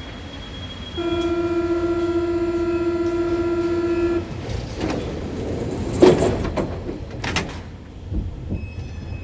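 Door-closing warning buzzer on an MP73 metro train, a steady pitched tone lasting about three seconds, followed by the doors sliding shut with a loud thud about six seconds in and a rattle just after.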